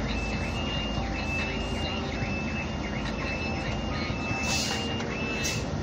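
A truck's diesel engine running slowly, with a steady run of high, evenly repeated beeps from a reversing alarm. A short hiss comes about four and a half seconds in.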